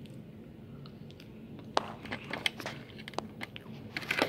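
Crisp crunching and clicking from a waffle bowl of ice cream handled close to the microphone: scattered sharp clicks, thickest near the end.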